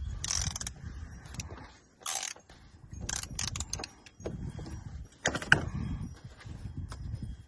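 Socket wrench with a 24 mm socket working loose the oil filter housing cap: scattered metallic clicks and clinks in short groups, the sharpest about five and a half seconds in, over low handling rumble.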